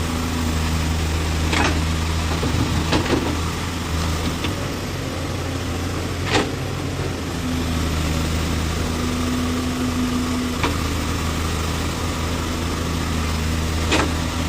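Case 851EX backhoe loader's diesel engine running steadily at a low speed, with a few sharp knocks over it.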